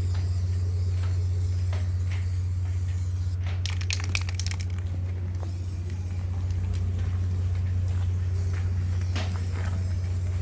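A steady low hum throughout, with a short hiss from an aerosol spray-paint can about three and a half seconds in, lasting under two seconds, and a few light clicks.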